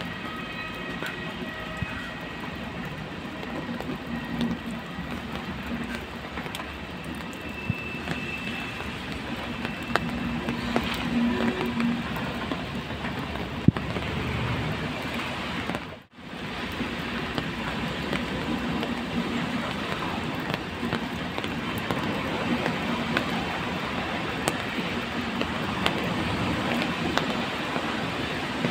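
Loaded flat wagons of a freight train rolling past, with a steady rumble and occasional clicks from the wheels on the rails. The sound cuts out for an instant a little past halfway through.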